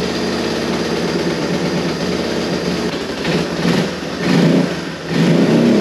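Yamaha Moto 4 ATV's single-cylinder four-stroke engine running just after starting, then revved up three times in quick blips over the last few seconds. It is a throttle test after a wrongly sized O-ring on the carburetor's emulsion tube was replaced.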